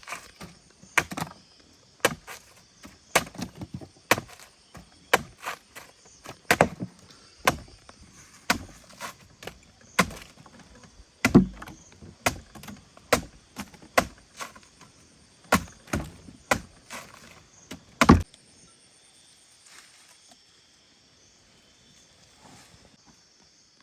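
Repeated sharp strikes on wood, like chopping with a blade or axe, irregular at about one or two a second, stopping about three-quarters of the way through. Insects trill steadily underneath.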